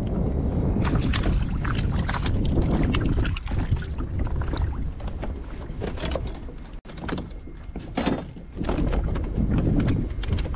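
Wind buffeting the microphone on a kayak out on choppy water, with many short splashes, clicks and knocks of water and gear against the hull. The sound cuts out for an instant about two-thirds of the way in.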